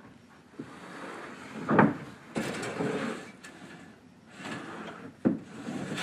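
Wooden boards sliding and scraping against each other, with two sharp knocks about two seconds and five seconds in.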